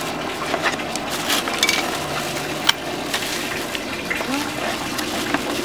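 Bubble wrap and plastic packaging crinkling and crackling as wrapped parts are handled and lifted out of a cardboard box. Under it, a steady rush of running water from a garden pond.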